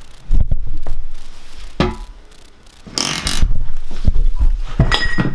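Handling knocks and thuds from working on a toilet being fitted, with a scraping rush about three seconds in and a short ringing clink near the end.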